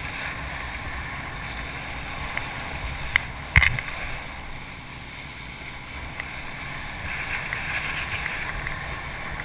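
Steady rush of water and wind on the camera as a wakeboard carves across a boat's wake, with a few sharp knocks a little over three seconds in.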